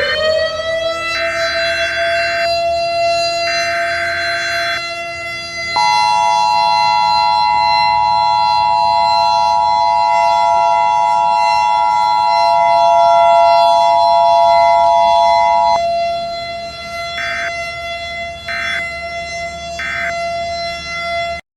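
Mock Emergency Alert System alert over a civil-defense-style siren that winds up and then holds one steady pitch. First come two short buzzing data bursts, then a two-note attention tone for about ten seconds, then three short end-of-message bursts. It all cuts off abruptly near the end.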